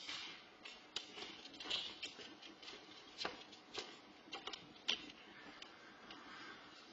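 Footsteps on a hardwood floor: about a dozen short, sharp clicks and taps scattered over a few seconds, the loudest about five seconds in.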